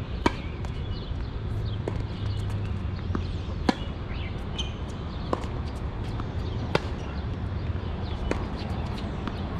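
Tennis rally: a ball struck back and forth by rackets, a sharp hit roughly every one and a half seconds, alternating between louder and fainter strikes, over a steady low hum.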